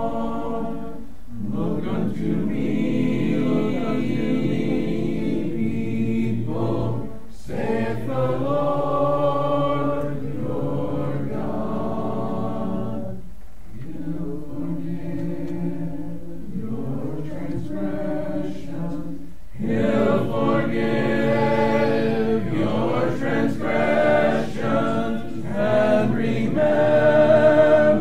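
A church congregation singing a hymn a cappella, many voices together with no instruments, in sung phrases separated by short pauses about every six seconds.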